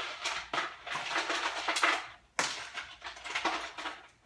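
Ice cubes clattering and rattling as they are poured into a blender jar. They come in a couple of pours, with a short pause about halfway through.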